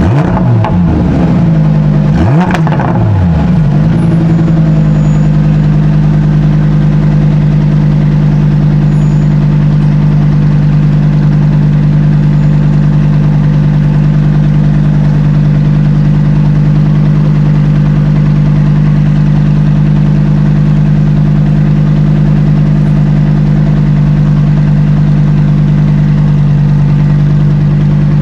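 Car engine revving briefly, its pitch sweeping down and up in the first few seconds, then settling into a steady idle.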